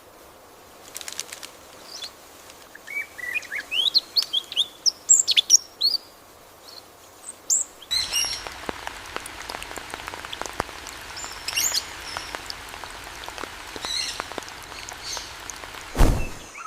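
Wild birds calling, with a run of quick rising and falling whistled notes in the first half and scattered high chirps later. From about halfway a steady hiss with scattered ticks sits under the calls. A brief, loud low sound comes near the end.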